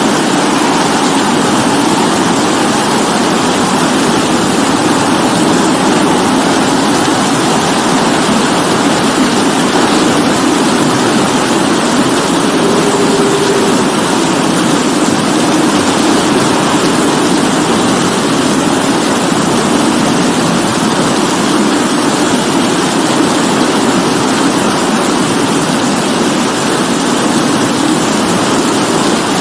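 Steady rainfall: an even, unbroken hiss.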